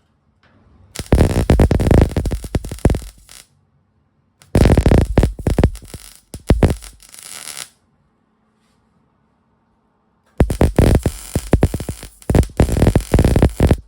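Electric welding arc crackling and sizzling in three separate runs of about three seconds each, stitch-welding the steel bed floor and its braces.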